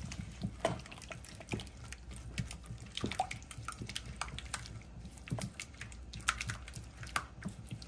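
Red spatula stirring a wet mayonnaise, egg and seasoning mixture in a glass bowl: irregular wet squelches and small clicks as the mix is worked.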